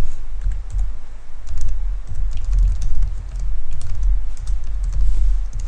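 Typing on a computer keyboard: quick, uneven runs of keystrokes, with a heavy low thump under the clicks.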